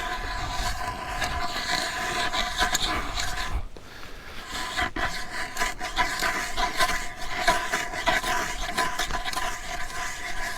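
Ice auger drilling a hole through lake ice, a steady grinding scrape with crackling chips, easing off briefly about four seconds in before cutting on.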